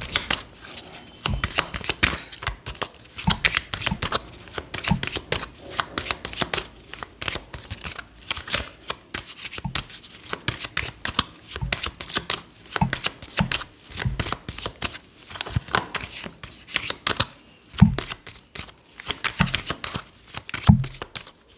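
A tarot deck being shuffled by hand: a long run of quick card flicks and riffles, with a few dull knocks as the cards settle.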